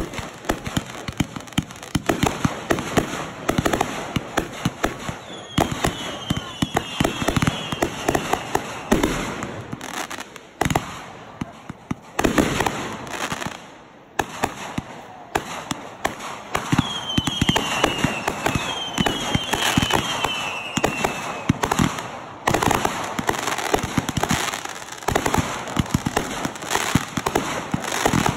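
Consumer fireworks going off in a rapid barrage of pops and crackling bursts. There are two clusters of short falling whistles, about six seconds in and again from about 17 to 21 seconds, and brief lulls around 11 and 14 seconds.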